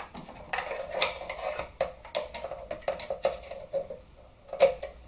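Screwdriver working a screw loose in an airsoft G36 rifle, metal clinking and scraping on metal. It makes a string of small irregular clicks, with a sharper knock about four and a half seconds in.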